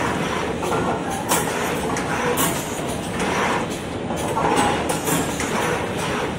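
Automatic receiving and stacking machine running: a steady mechanical clatter from its conveyor and moving pick-and-place heads. It is broken by short hisses every second or so as the pneumatic suction heads grab and release the sheets.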